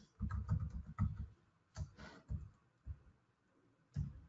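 Computer keyboard being typed on: a quick run of keystrokes in the first second or so, then a few scattered single strokes.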